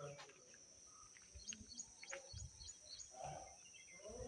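Near silence: faint outdoor ambience with a steady high hiss, a few short high chirps and some faint low thumps.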